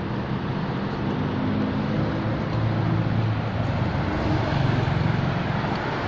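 An engine running steadily under a broad hiss, its low hum shifting in pitch and growing louder around the middle.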